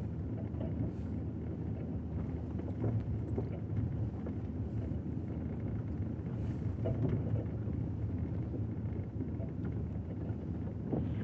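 Vehicle driving slowly along a muddy dirt field road, its engine running steadily at low revs with a low hum and light road and tyre noise.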